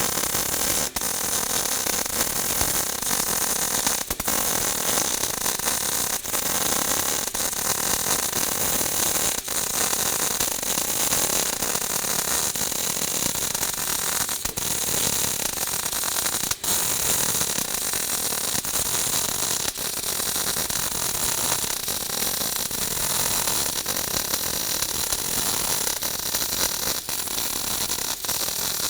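MIG welding arc with solid (hard) wire, set at about 18.5 volts and a wire feed speed of about 200, running steadily as a vertical-up weave pass is laid: a continuous crackling hiss.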